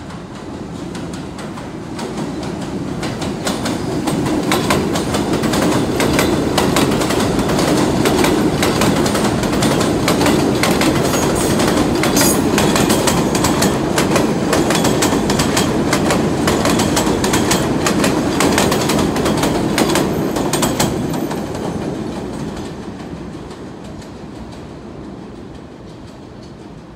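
R46 subway train passing through the station on the elevated line, its steel wheels clicking rhythmically over the rail joints. The rumble builds over the first few seconds, stays loud for about fifteen seconds as the cars go by, then fades as the train moves away.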